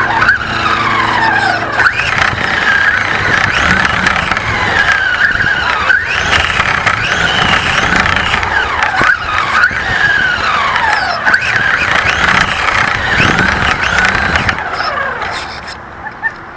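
Radio-controlled car's motor whining, its pitch rising and falling over and over as the car speeds up and slows. It drops away near the end.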